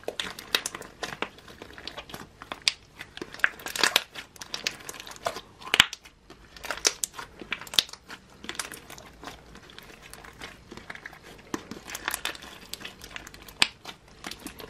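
Crunchy slime packed with decorations being squeezed and kneaded by hand, giving off quick, irregular crackles and pops that are fairly loud.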